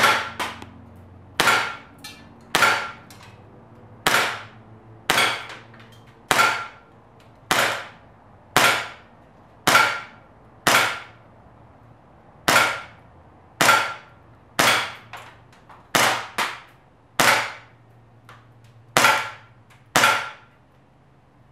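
Umarex Heckler & Koch USP CO2 blowback airsoft pistol firing 6 mm BBs: a string of about eighteen sharp shots at roughly one a second, with a slightly longer pause near the middle.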